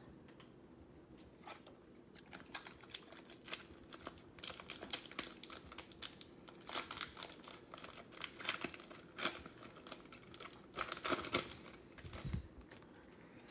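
Plastic wrapper of a 2020-21 NBA Hoops trading card pack being torn open and crinkled by hand, in short irregular spells of crackling, busiest in the second half.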